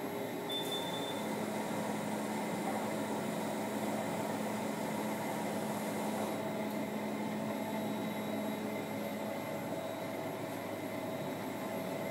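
Technogym Run XT treadmill running unloaded: a steady whirring drone of the motor, belt and rollers with a faint low hum in it, and no footfalls.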